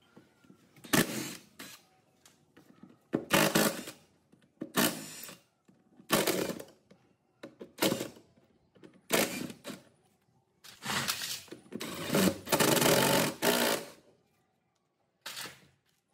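A power tool run in about ten short bursts of a second or less with short pauses between them, and one longer run of about two seconds near the end.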